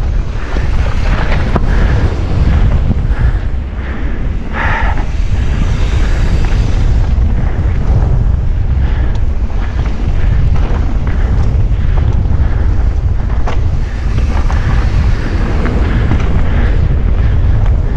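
Wind buffeting a GoPro's microphone during a fast mountain-bike descent, with the knocks and rattle of the bike running over rough trail.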